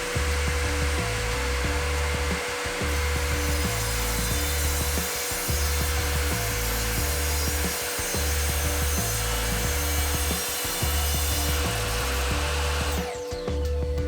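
Evolution R255SMS sliding mitre saw with its multi-purpose blade cutting through an OSB sheet: a steady, loud saw noise that stops about thirteen seconds in as the motor winds down. Background music with a steady beat plays underneath.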